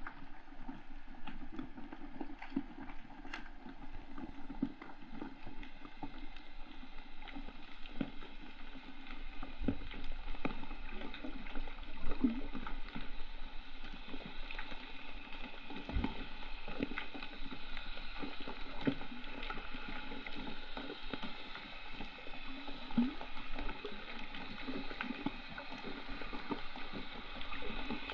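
Muffled sea water gurgling and bubbling around a GoPro camera, with many small clicks and crackles.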